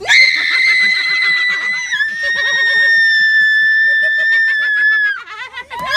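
A young woman's long, high-pitched scream of fright, held for about five seconds with a slight drop in pitch about two seconds in.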